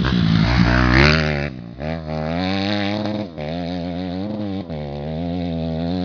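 Honda CRF250R dirt bike's single-cylinder four-stroke engine blipped loudly, then dropping back to a lumpy, wavering idle with a few brief dips.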